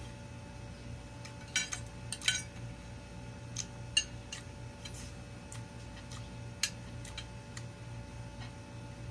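Metal spoon and fork clinking and scraping on a ceramic plate while scooping rice: a scatter of sharp clinks, the loudest about two seconds in and again about four seconds in, over a steady low hum.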